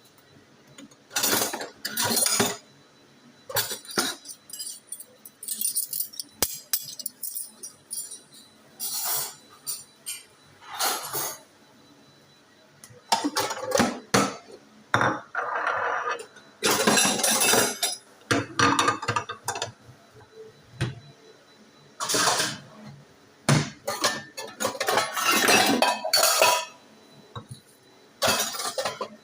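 An irregular run of short clinks and clatters, some lasting a second or two, separated by near-quiet gaps, like hard objects such as dishes or cutlery being knocked and handled.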